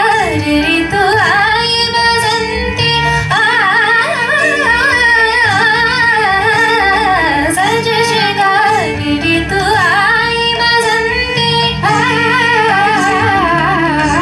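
Female voice singing a raga-based Hindi film song, the melody full of wavering ornaments and quick runs, over instrumental accompaniment with sustained steady notes.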